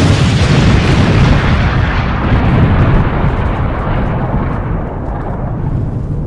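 Artillery barrage sound effect: a loud, continuous rumble of shell explosions that starts abruptly and gradually eases off toward the end.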